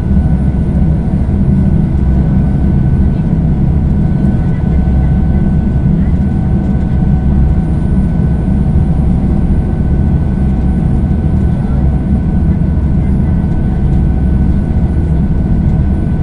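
A passenger ferry's engines running steadily under way: a heavy low rumble with a few steady whining tones above it.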